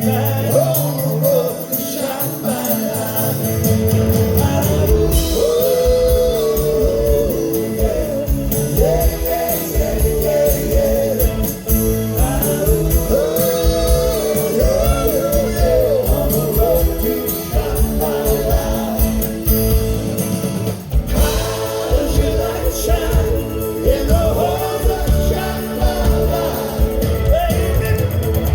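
Rock band music with voices singing over a steady beat.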